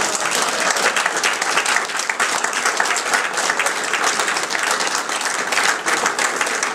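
A roomful of people applauding: many hands clapping in a dense, steady stream.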